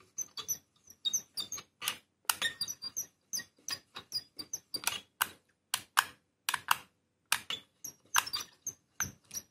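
Solder wire melting on a hot copper plate under a transformer soldering gun's tip, the rosin flux crackling and spitting: irregular sharp pops, about three a second, with small squeaky chirps.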